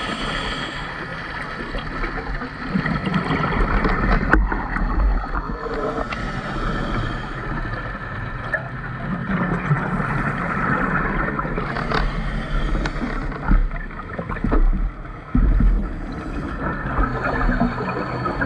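Underwater sound of a scuba diver breathing through a regulator: exhaled bubbles rumble and gurgle every few seconds over a steady underwater hiss, with a few sharp clicks.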